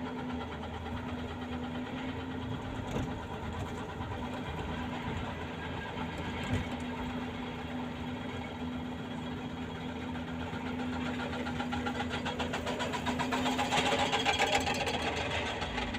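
Excavator diesel engine running steadily, with the rapid repeated hammering of a hydraulic breaker that grows louder over the last few seconds.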